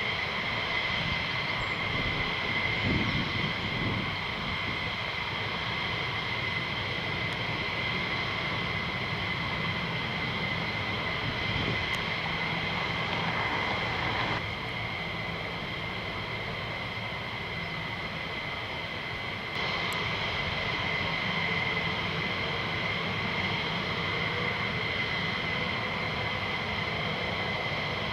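Fighter jet engines running with a steady high-pitched whine over a low rumble. The sound drops a little about halfway through and comes back up about five seconds later.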